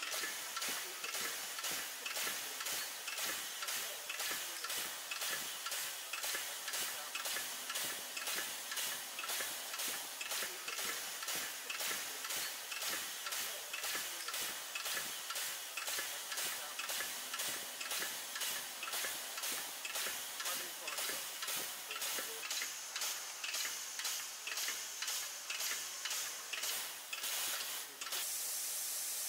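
Pneumatic piston pump on a stainless-steel drum unloading station working, its air motor letting out a hissing puff of exhaust air on each stroke, about two strokes a second, as it draws a thick paste out of the drum. Near the end the strokes stop and a steady hiss remains.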